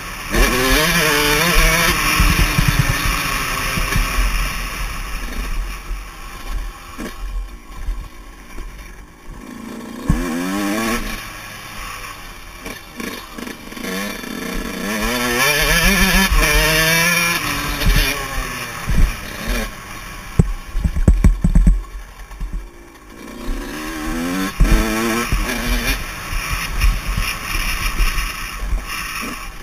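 Yamaha YZ125 two-stroke single-cylinder engine revving hard, its pitch climbing and dropping again and again as the throttle is opened and shut through the gears. Heard from a helmet camera with steady wind noise and occasional low thumps over the bumps.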